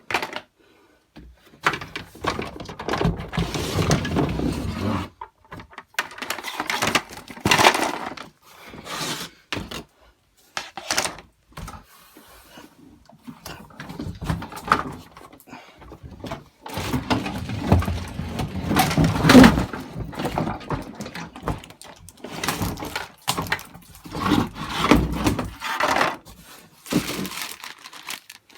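Plastic toy pieces and packaging being handled and unpacked: irregular rustling, crinkling and clattering in bursts with short pauses.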